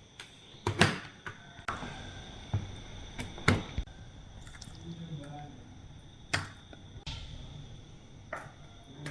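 A series of separate sharp clicks and knocks, about seven over several seconds at irregular intervals, over a faint low hum.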